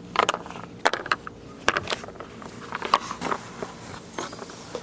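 Scattered, irregular clicks and knocks of hand tools and car parts being handled, over a low steady background hum.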